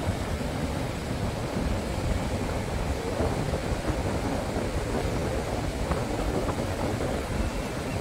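Wind noise on the microphone over a steady wash of surf.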